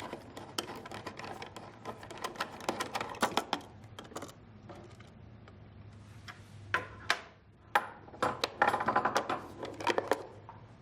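Plastic parts of a Hamilton T1 ventilator being handled as the filter cover is unclipped and the HEPA filter lifted out: scattered clicks and light knocks, with a quick run of clicks near the end.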